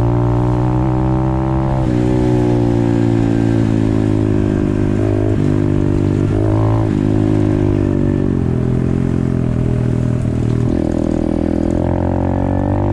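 Apollo RFZ 125cc pit bike's single-cylinder four-stroke engine running at speed, its pitch dipping and rising several times as the throttle and gears change.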